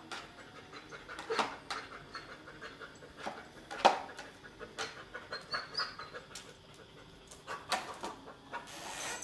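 Dog panting in quick, uneven breaths, with a few sharp knocks, the loudest about four seconds in.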